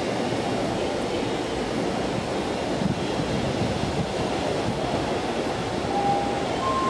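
Osaka Municipal Subway 20 series train pulling slowly into the station: a steady rumble of wheels on rails, with two short faint tones near the end.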